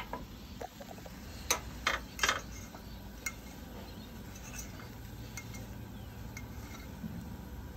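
Metal fork and knife clinking against a stainless steel frying pan and cutting board as steak is handled: a cluster of sharp clinks about two seconds in, with lighter ticks before and after.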